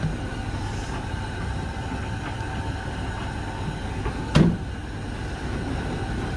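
Washing machines and a tumble dryer running together with a steady hum. One sharp knock rings out about four seconds in.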